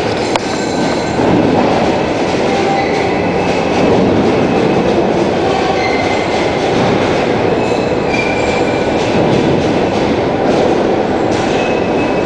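Railway carriage wheels rolling on the rails as the train is shunted onto a train ferry's rail deck: a steady rumble with faint high wheel squeals now and then and a few sharp clicks.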